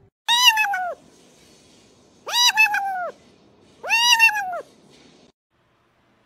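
A kitten meows three times, each high-pitched meow rising and then falling, with short pauses between them.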